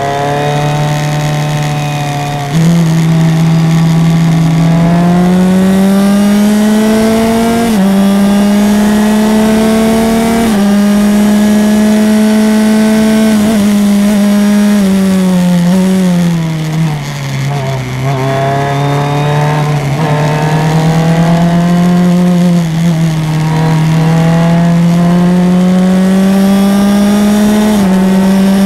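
Onboard sound of a Formula 2000 open-wheel race car's engine at high revs, its pitch climbing through the gears with a sudden drop at each upshift. About halfway through the pitch falls away as the car brakes and downshifts, then climbs through the gears again.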